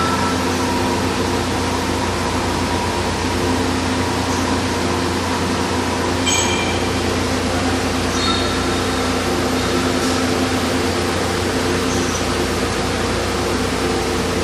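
Wet floor scrubber machine running: a steady motor hum over an even rushing noise, with a few brief high squeaks.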